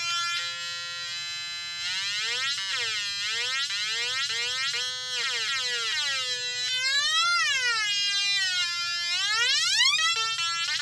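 Atari Punk Console, a two-555-timer synth circuit, buzzing through a small speaker as its knobs are turned. The tone holds and steps in pitch at first, then glides down and up again and again, with a long rise and sudden jumps near the end.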